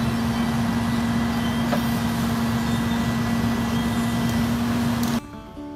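A brush-collection truck fitted with a knuckleboom grapple loader running steadily, with a strong constant hum. Just before the end it cuts off suddenly and acoustic guitar strumming takes over.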